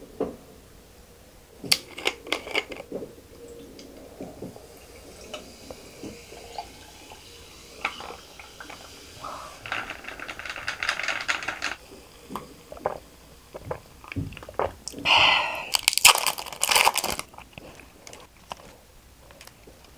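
Carbonated peach-lemon soda poured from a plastic bottle over ice into a tall glass and fizzing, with scattered clicks and knocks from the bottle and glass being handled.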